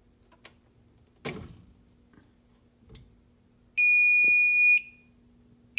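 Fire alarm control panel's built-in piezo sounder beeping: a loud, steady high-pitched tone about a second long, starting about four seconds in, after a few faint clicks. The panel is sounding a trouble signal, expected here as it goes into battery trouble.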